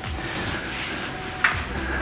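Background music at low level, with a single sharp click about one and a half seconds in.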